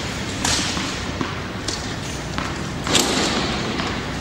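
A few sharp knocks of a tennis ball and racket, the loudest about three seconds in, over steady wind noise on the microphone.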